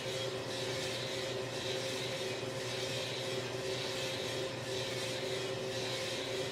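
Small drum coffee roaster running: a steady mechanical hum with two held tones, and a hiss on top that swells and fades about three times every two seconds in step with the turning drum.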